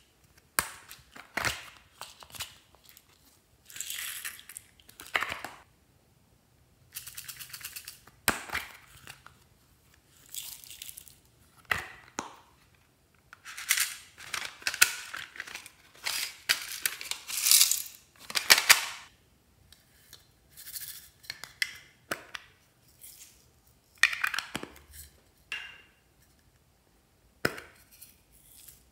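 Hands handling plastic slime moulds and sprinkling loose sequins and beads onto a tray of slime: a string of short hissy rustles and sharp clicks with brief gaps between them.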